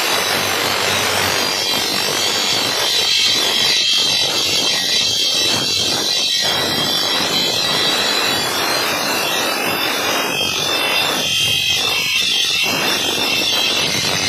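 Grinding machine working the edge of a steel chaff cutter blade: a steady, harsh, hissing grind that dips briefly now and then as the blade's contact changes.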